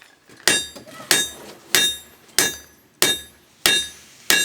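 Blacksmith's hand hammer striking hot iron on an anvil: seven evenly spaced blows, about three every two seconds, each with a short metallic ring. The smith is forging the shoulders of a hand-made spade.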